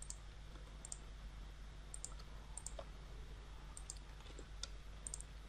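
Faint computer mouse clicks, mostly in quick pairs about once a second, over a steady low electrical hum.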